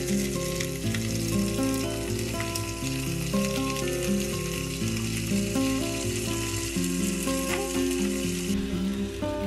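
Eggplant, okra, long beans and cherry tomatoes sizzling in a frying pan as thick curry paste is spooned in, with soft background music playing.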